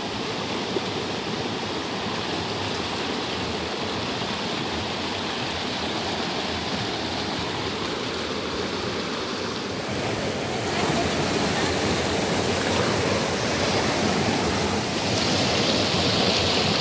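Shallow, fast river water rushing and splashing over rocks, a steady noise that grows louder about ten seconds in.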